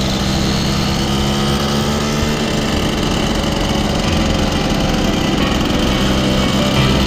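Small two-stroke moped engine running steadily while riding along.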